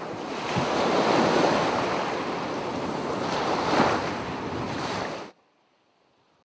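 Intro sound effect of a loud rushing noise, swelling twice and cutting off suddenly a little past five seconds in.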